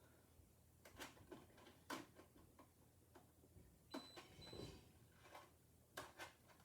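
Near silence broken by a handful of faint, irregular knocks and clicks.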